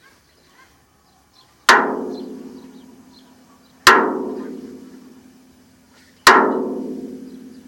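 A barrel struck hard three times, about two seconds apart, each blow leaving a ringing tone that dies away slowly.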